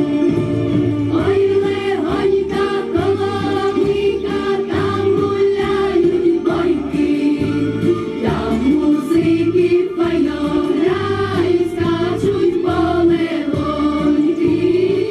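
Children's choir singing together, with a steady bass beat underneath.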